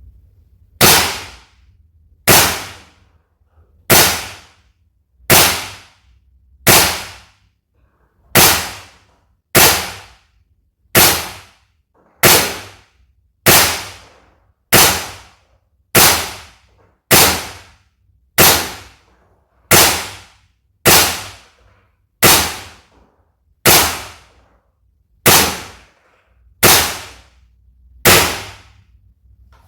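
WE M4A1 V.3 gas blowback airsoft rifle fired in single shots at a steady pace, about one every second and a half. Each shot is a sharp crack with the bolt cycling, dying away quickly.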